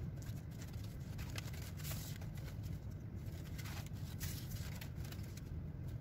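Faint rustling and handling of stiff folded-paper stars being picked up and moved on a tabletop, a few soft scattered rustles over a low steady hum.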